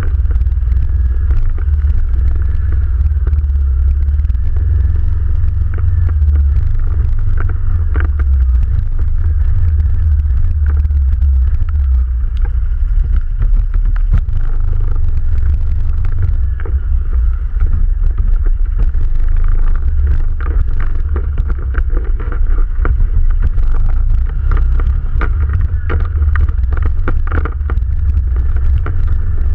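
ATV engine running steadily while riding over rough forest ground, with scattered knocks and rattles from bumps.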